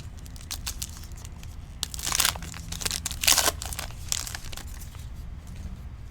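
Plastic crinkling and scratchy sliding as clear acetate trading cards and their pack are handled, with the loudest swishes about two, three and four seconds in.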